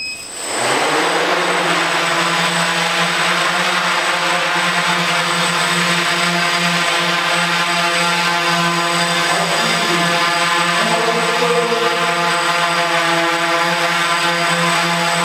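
Small quadcopter's electric motors and propellers spinning up, then a steady humming whine as it hovers, with small shifts in pitch partway through as it moves.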